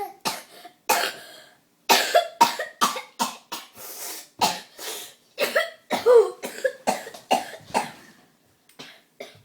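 A boy fake-coughing over and over in a rapid string of short, forced coughs, some with a bit of voice in them, thinning out to a few faint ones near the end.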